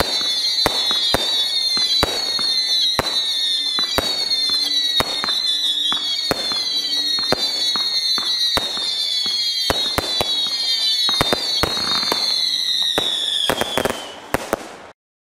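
Fireworks going off in quick succession: a string of high whistles, each falling slightly in pitch, about one a second, over a steady run of sharp bangs. The sound cuts off suddenly near the end.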